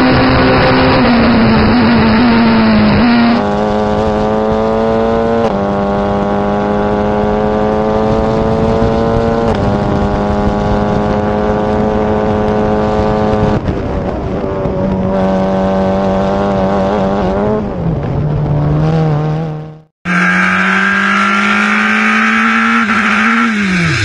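Racing car engines heard onboard, running hard at high revs, the note holding steady and then stepping in pitch at gear changes. The sound cuts to a different car about three seconds in and again just before twenty seconds, with a brief drop to silence at the second cut. Near the end the engine note falls steeply as the car slows.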